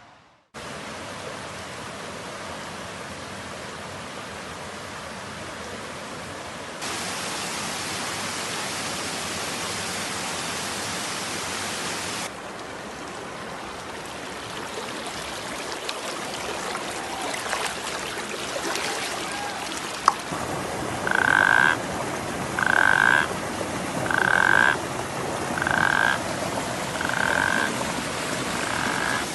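Running water hissing steadily, its level jumping at a few cuts. In the last third a frog calls six times in a steady series, about one call every second and a half, with a sharp click just before the calls begin.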